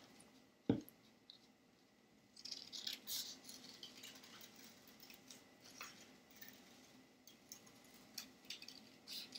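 Scissors cutting through folded construction paper: a faint, irregular run of snips and crunching cuts that starts a couple of seconds in. Before that there is a single short knock about a second in.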